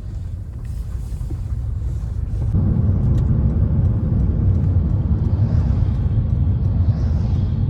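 An engine running with a low, steady rumble that grows louder about two and a half seconds in and holds there.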